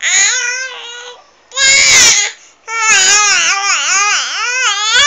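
A domestic cat's 'talking' meows: three drawn-out, pitch-bending calls, a first one of about a second, a short loud one near two seconds in, then a long wavering call that dips and rises over the last half.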